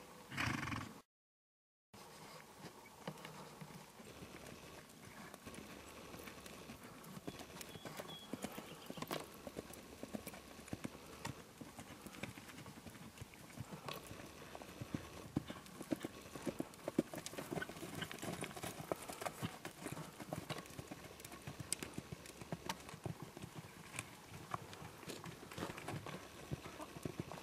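Horse's hooves beating on a dirt arena, trotting at first, then faster and louder from about halfway in as the horse lopes around the barrels. A short loud burst at the very start is followed by a second of dead silence.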